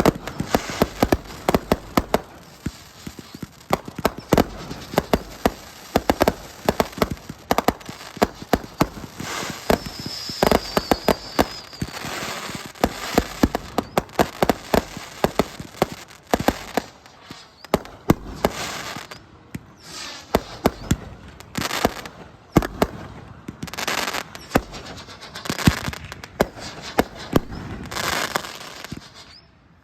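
Fireworks going off non-stop: dense strings of rapid sharp bangs for the first half, then separate bursts of crackling with short gaps between them. A brief high wavering whistle is heard about ten seconds in.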